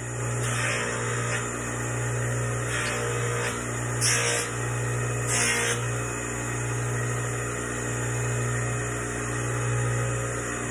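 Bench polishing/buffing machine running with a steady motor hum, while a small stainless steel blank is pressed against the spinning rouge-loaded wheel in several short passes, each a brief burst of rubbing noise, mostly in the first six seconds.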